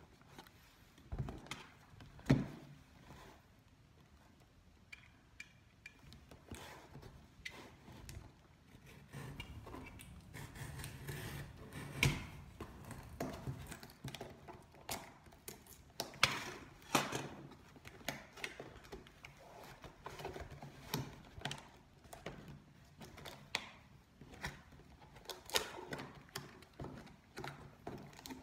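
Cardboard camera box being handled: irregular knocks and taps, the sharpest about two seconds in, then longer stretches of scraping, rubbing and small clicks as the box's seal is cut with a utility knife.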